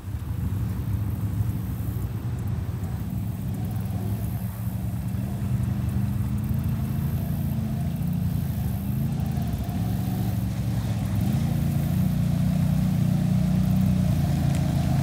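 Honda and Can-Am ATV engines running steadily at low speed, growing a little louder toward the end.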